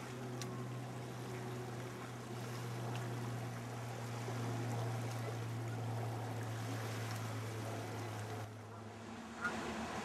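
Lake water lapping on a shallow shore under a steady low hum that cuts off near the end.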